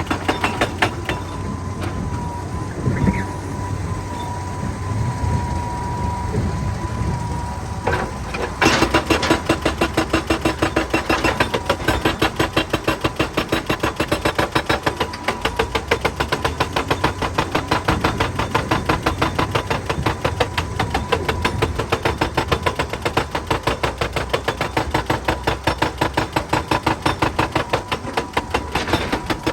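Excavator-mounted hydraulic rock breaker hammering rock in rapid, steady blows over the machine's running engine. The hammering pauses for several seconds near the start, leaving the engine and a steady whine, then resumes and keeps going.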